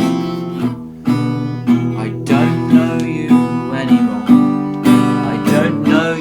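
Song music: acoustic guitar strummed in a steady rhythm, about two strums a second, with a wavering higher melody line joining about two seconds in.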